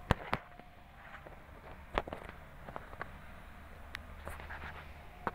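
A few sharp clicks and knocks, the loudest right at the start and about two seconds in, over a faint low hum.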